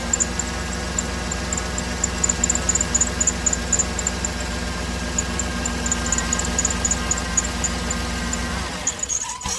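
Cadillac Escalade ESV's V8 engine idling steadily with a light high ticking over it, then shut off about nine seconds in.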